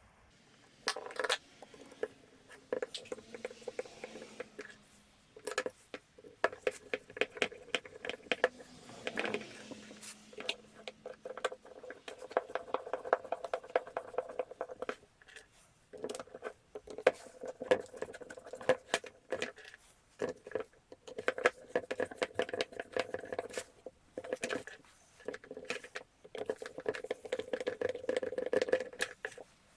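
Irregular clicking, tapping and light rattling of small parts and tools being handled.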